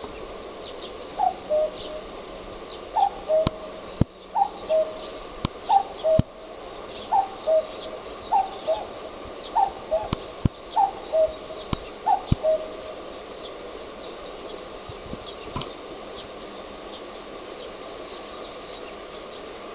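Common cuckoo calling its two-note "cuck-oo", the second note lower than the first, about nine times at a steady pace of roughly one call every second and a half, then falling silent about two-thirds of the way through.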